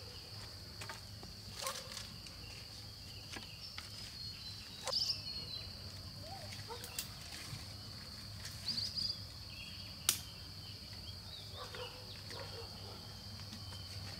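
Forest insects droning in a steady, high continuous tone. Brief chirps come about five and nine seconds in, and a few scattered clicks and knocks, the sharpest about ten seconds in.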